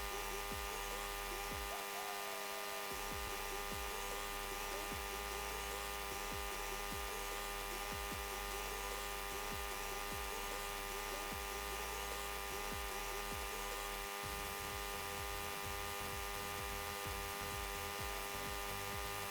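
Steady electrical hum with a buzzy edge, unchanging throughout, with faint voices far beneath it.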